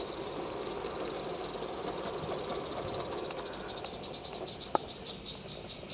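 A 16mm-scale live steam garden-railway locomotive working a heavy freight train: rapid exhaust beats over a steady steam hiss, with wheels running on the track. A single sharp click comes about three-quarters of the way through.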